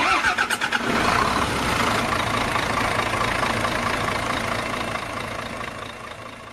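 An engine starting: a quick run of rapid pulses as it catches, then a steady running sound that slowly fades out toward the end.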